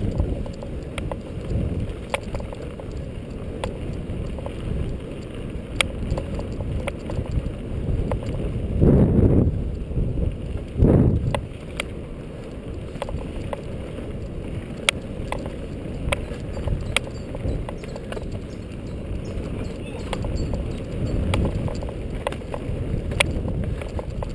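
Mountain bike rolling over a bumpy dirt trail: a steady low rumble with frequent sharp clicks and rattles from the bike, and two louder surges about nine and eleven seconds in.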